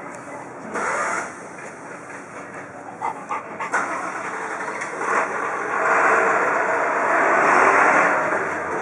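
Street traffic noise, with a vehicle passing that swells loudest in the last few seconds.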